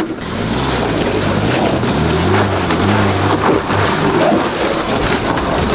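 Lifted first-generation Subaru Forester's flat-four boxer engine working at low speed as it crawls over a rocky, leaf-covered trail, the revs rising and falling a few times, over a steady rough noise of tyres on the ground.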